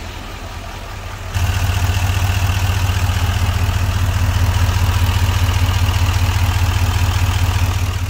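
L5P Duramax 6.6-litre V8 turbo-diesel in a 2019 Silverado 3500 idling steadily, running with a newly replaced #3 injector and showing no codes or leaks. It gets louder about a second and a half in, heard up close in the open engine bay.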